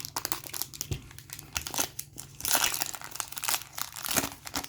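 Foil wrapper of a trading card pack crinkling as it is handled and torn open: a dense run of crackles, loudest in the second half.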